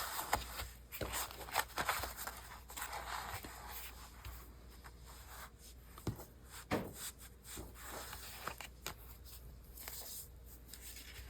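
Paper and craft material being handled and positioned on a tabletop: soft rustling and scraping with a few scattered light taps.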